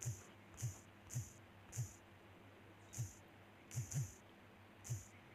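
Typing on a smartphone's on-screen keyboard: about eight separate key taps at an uneven pace, each a short click with a soft thump.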